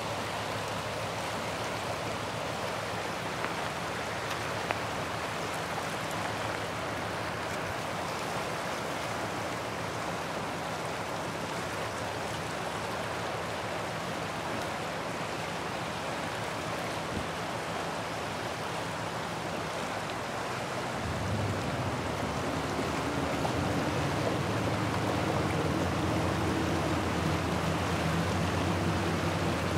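River water rushing steadily over shallow riffles. About two-thirds of the way through, a low steady hum joins in and the sound grows slightly louder.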